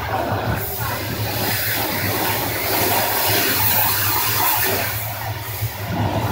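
Pressure washer jet spraying a concrete pool floor: a steady loud hiss of water under high pressure, with a steady low hum underneath.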